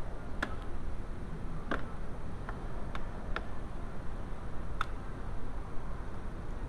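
A handful of sharp, irregularly spaced plastic clicks as a protective trim panel on a VW Jetta door is pried off its clips.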